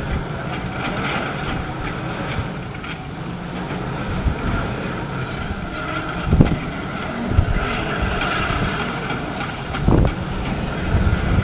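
Two Э-2503В front shovels at work in a limestone quarry, heard from a distance as a steady machinery rumble. A few low thumps break through it, and wind buffets the microphone.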